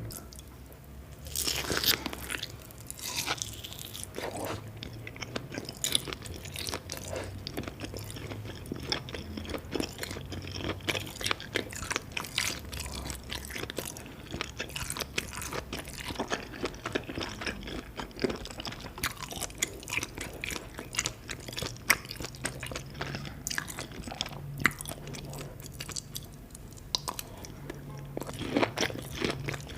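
Close-miked chewing of raw scallop sashimi: a steady run of quick, wet mouth clicks and smacks.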